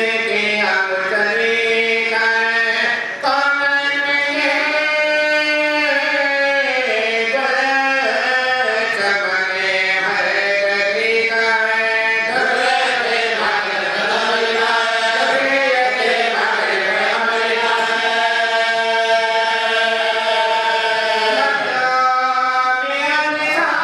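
A man's voice chanting a devotional lament into a microphone, in long held notes that bend slowly up and down.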